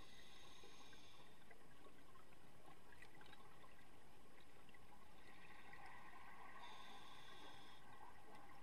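Faint, steady underwater hiss picked up through an underwater camera housing, with scattered light crackles.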